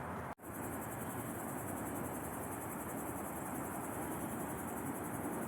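Steady outdoor ambience with a continuous high, fine-pulsed insect trill over a constant rushing hiss. A split-second gap of silence comes about a third of a second in.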